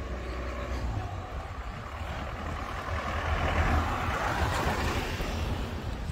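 A motor vehicle passing by: its rush of noise swells to a peak about four seconds in, then fades, over a steady low rumble of wind on the microphone.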